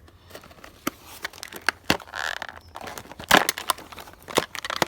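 Packaging being cut open with small safety scissors and handled: a run of sharp snips, clicks and crackles, with a short rustle about two seconds in and a dense burst of clicks a little past three seconds.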